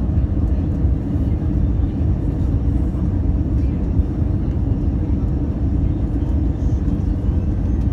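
Steady cabin noise inside an Airbus A320 descending on approach to land: a loud, even low rumble of engines and airflow with a faint steady hum.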